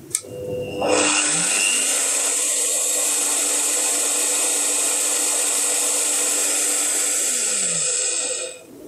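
Bosch PBD-40 pillar drill's motor: after a click, it starts about a second in and rises in pitch as it spins up. It runs steadily for about seven seconds, then winds down near the end as it is switched off.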